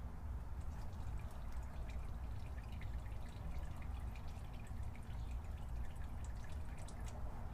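Motor oil dripping and trickling into a drain pan, a run of small irregular drips over a low steady rumble.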